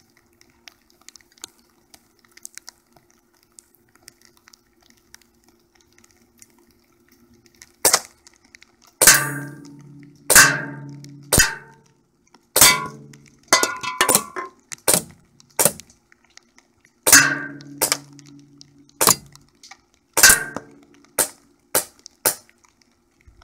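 Daisy Airstrike CO2 airsoft pistol emptying its 12-round magazine at cans and a water-filled bottle: a string of sharp cracks starting about eight seconds in, spaced roughly a second apart with some in quick pairs. The loudest carry a short ringing clang from BBs striking the cans.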